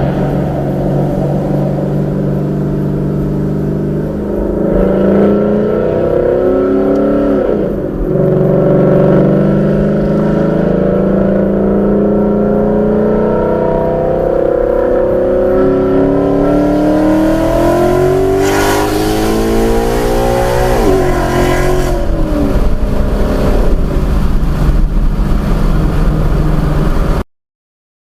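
2015 Mustang GT's 5.0 V8 heard from inside the cabin through catless long-tube headers, an X-pipe and Roush axle-back mufflers, accelerating. The engine note climbs in pitch and drops sharply at a gear change about eight seconds in, climbs again, drops at a second shift near 21 seconds, then carries on at a steadier pitch until the sound cuts off near the end.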